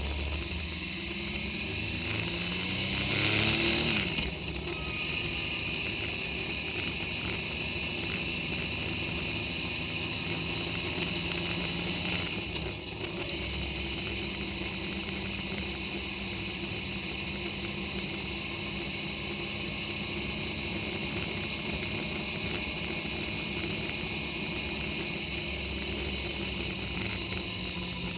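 Motorcycle engine accelerating, its pitch rising over the first few seconds, then running steadily at an even road speed, with wind and road noise on the bike-mounted camera.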